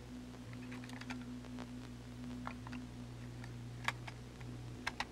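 Faint crackle and scattered small clicks over a steady low hum, with a few sharper clicks near the end: the surface noise of an old tape recording starting to play.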